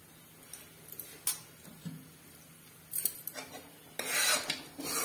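Steel spoon scraping and stirring ground turmeric as it roasts in a steel kadhai, in scattered strokes. The strokes grow louder about three seconds in and again around four seconds.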